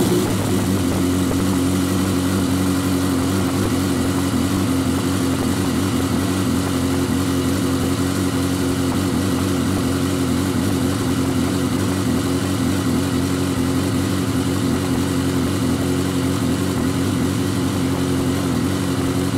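2016 BMW S1000R's 999 cc inline-four engine idling steadily, just started on its freshly refilled engine oil after an oil and filter change.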